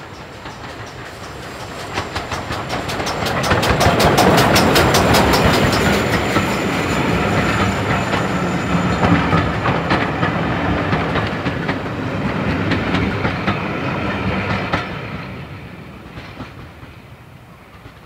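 GWR 5205-class 2-8-0 tank steam locomotive passing under steam, with a fast, even run of exhaust beats loudest as the engine goes by. Its passenger coaches follow, rumbling and clicking over the rail joints, then fade away near the end.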